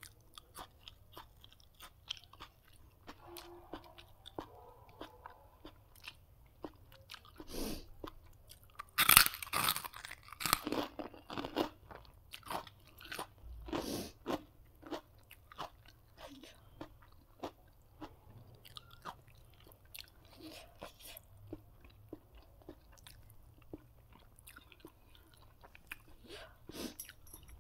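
Close-up mouth sounds of a person eating: chewing and crunching food in irregular bites, with the loudest burst of crunching about nine seconds in.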